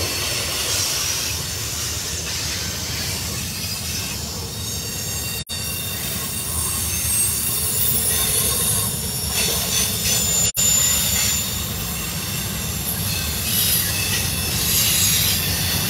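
Double-stack intermodal freight train rolling past: a steady rumble of wheels on the rails, with thin, high-pitched wheel squeal over it.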